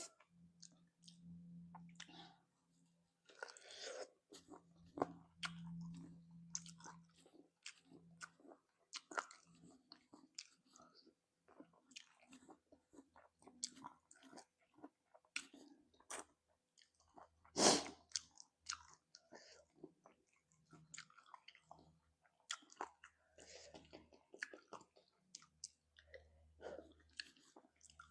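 Close-miked chewing and biting on spicy chicken feet: irregular clicks and crunches of gnawing the skin and cartilage, with one louder crack about 18 seconds in.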